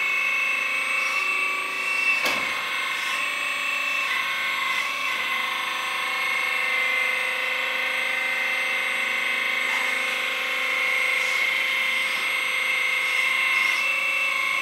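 Hydraulic pump of a 1/14 scale RC hydraulic excavator whining steadily while the boom and arm are worked, its tone changing slightly a few times. A single sharp click about two seconds in.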